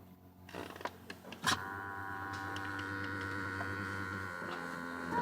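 Electric power seat motor of a BMW E60 running: a click about a second and a half in, then a steady motor whine as the seat moves.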